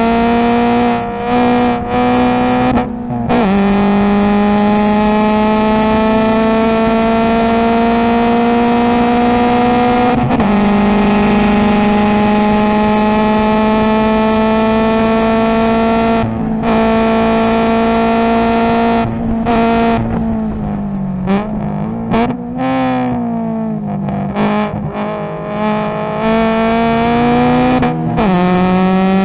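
Subaru BRZ's 2.0-litre flat-four race engine, with an aftermarket header and catback exhaust, heard inside the cabin at full throttle: it climbs in pitch and upshifts twice, a few seconds in and about ten seconds in, then pulls a long stretch in fifth gear. About twenty seconds in it comes off the throttle for braking with quick blipped downshifts, then accelerates again and upshifts near the end.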